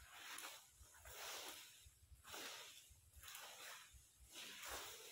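Faint repeated swishing of brooms sweeping dry rubber-tree leaves over the ground, about one stroke a second.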